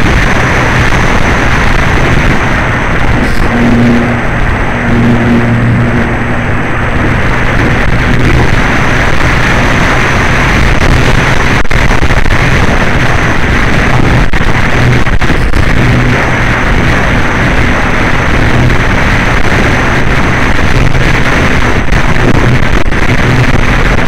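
Loud, continuous wind rush buffeting the onboard FPV camera's microphone on a Flyzone Calypso electric RC glider in flight, with the steady low hum of its electric motor and propeller underneath.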